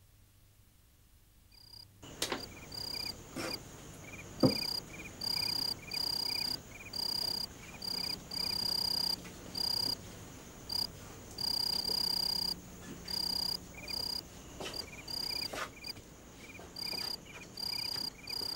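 Crickets trilling in repeated on-off bursts of high chirping, as night ambience. A few sharp clicks sound over them, the loudest about four and a half seconds in. The chirping starts after about two seconds of silence.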